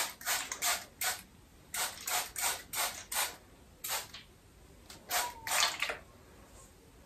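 Damp hair being handled and twisted into curls: short rustling strokes at irregular intervals, about two or three a second, in an echoey small bathroom.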